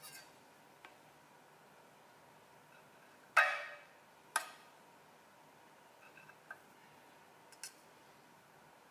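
Kitchen knife chopping through slices of firm dough onto a marble board: two sharp knocks of the steel blade on the stone about a second apart, the first loudest with a brief ring, and a few faint light taps around them.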